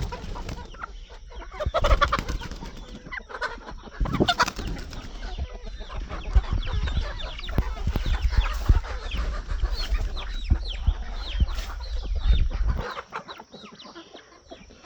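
Chickens clucking, many short calls overlapping as the flock gathers to be fed, with scattered clicks. A low rumble sits under them and stops near the end.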